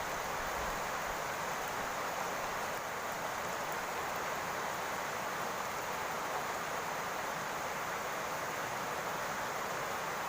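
Steady rain falling on a roof: an even, unbroken hiss.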